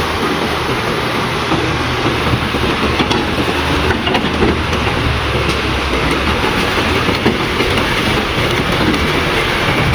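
JCB 3DX backhoe loader's diesel engine running steadily, with a dense mechanical noise over it. Its low hum eases about halfway through.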